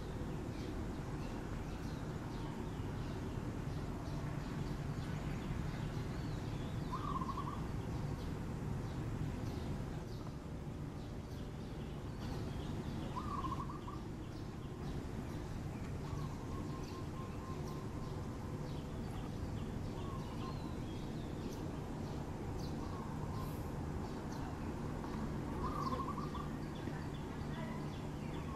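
Outdoor ambience: a steady low background rumble with scattered short bird chirps, three of them clearer than the rest.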